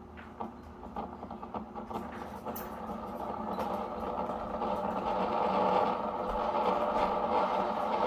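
Single-serve pod coffee maker preheating its water: a few ticks and crackles at first, then a rushing hum from the heater that grows steadily louder.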